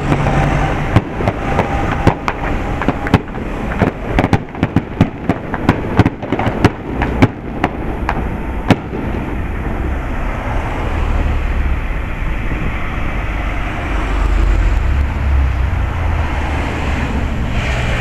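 Fireworks going off: a dense run of sharp pops and crackles from glittering crackle-star bursts, thinning out after about nine seconds into a steady low rumble with a few last cracks.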